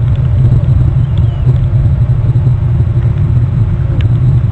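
Loud, steady low rumble without a clear beat or pitch.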